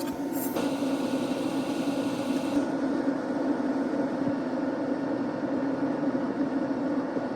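Steady whirring hum of a small motor or fan running, with no change in pitch.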